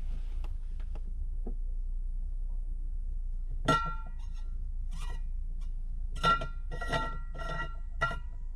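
Pistol shots from the range, heard from inside a military vehicle: about six sharp reports at irregular intervals in the second half, each with a short metallic ring. A steady low hum runs beneath them.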